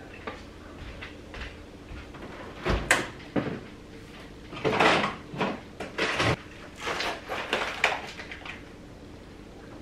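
A side-by-side fridge-freezer door opened with a thump about three seconds in, followed by plastic-bagged frozen food packages rustling and crinkling as they are taken out.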